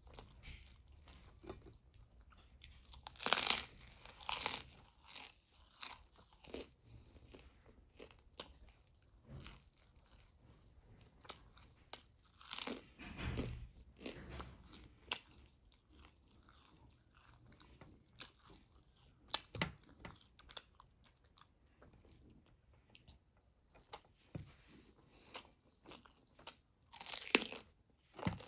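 A person eating close to the microphone: irregular chewing, biting and crunching of food. The louder crunchy bites come a few seconds in, around the middle and near the end.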